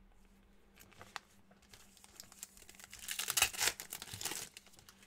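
Foil wrapper of an NBA Hoops trading card pack being torn open and crinkled by hand, loudest from about three seconds in, with a few light clicks of handling before.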